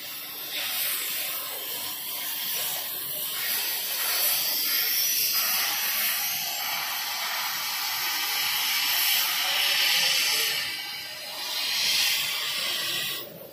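A loud, steady hissing noise that swells and eases in level, with little low rumble beneath it.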